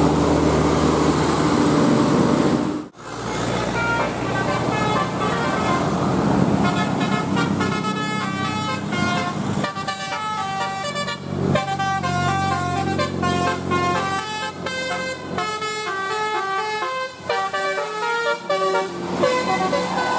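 Bus 'telolet' musical air horn playing a quick melody of stepped notes, several seconds long, over the bus engine running. The sound breaks off briefly about three seconds in before the horn tune starts.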